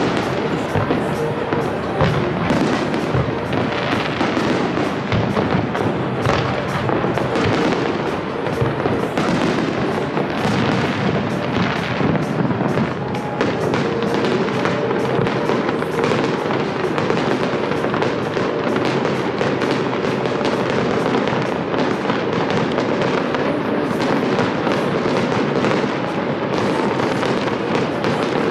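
Aerial fireworks display bursting without pause: a dense, steady run of bangs and crackles from shells going off overhead.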